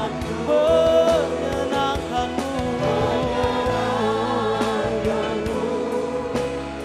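Live worship music: voices singing a slow Indonesian praise song in Indonesian, with a band accompanying them.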